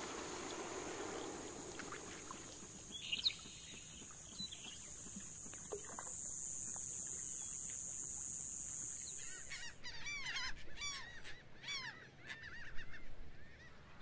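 A soft rush of wings and water as a flock of ducks lifts off a marsh, over a steady high insect chorus that grows louder for a few seconds and then cuts off abruptly. After that, a flock of water birds calls with many short, overlapping calls that rise and fall in pitch.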